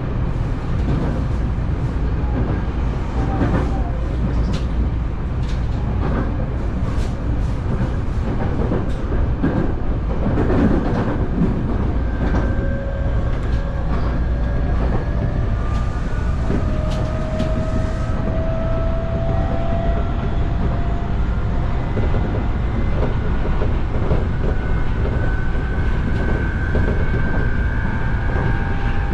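Electric commuter train running on track, heard from inside the car: a steady low rumble of wheels on rail, a run of sharp clicks over points and rail joints in the first half, and the motors' thin whine slowly rising in pitch as the train gathers speed.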